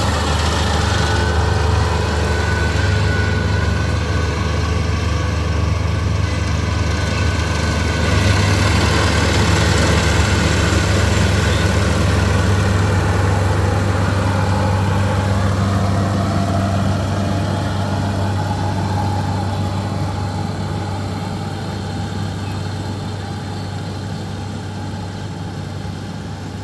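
Rice harvesting machine's engine running steadily with a deep, even hum, fading slowly over the second half.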